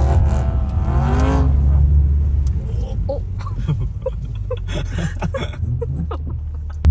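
Car engine revving, its pitch swinging up and down for the first second and a half, then settling into a steady low rumble.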